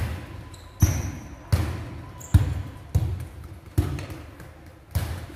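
Football (soccer ball) kicked back and forth along a hard tiled floor: a sharp thud about every three-quarters of a second, seven in all, each echoing in the large hall.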